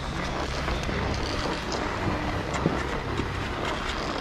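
Skis sliding and scraping over packed snow on a downhill run, a steady hiss, with wind rumbling on the microphone.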